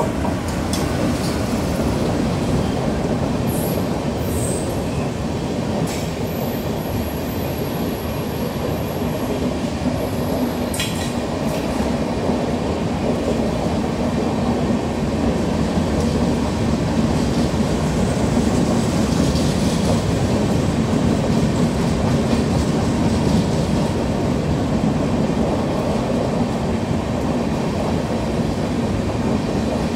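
Indian Railways express train of LHB coaches passing close at speed: a steady rumble and rattle of wheels on rail, with a few sharp clicks in the first dozen seconds.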